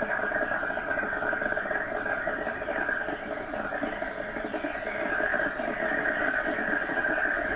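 Gas escaping from a submerged leak fitting as a continuous stream of bubbles, heard underwater as a steady, dense bubbling hiss: the acoustic signature of an underwater gas leak.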